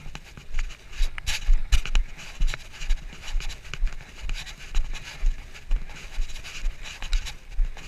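Walking footsteps jolting a body-worn action camera, dull thuds about two a second, with rustling of clothing against the camera.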